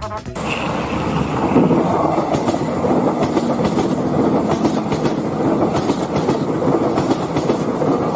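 Steady, loud vehicle rumble with a faint clicking that recurs at a regular pace.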